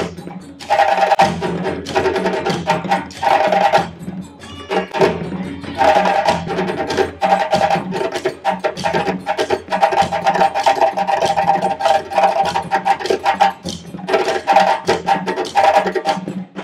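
Ensemble of djembe hand drums playing a fast, dense rhythm with sharp slaps.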